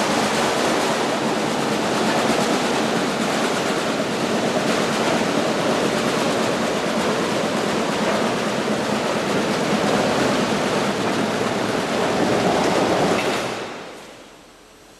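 Welding arc crackling and hissing steadily, cutting off about thirteen seconds in as the weld stops.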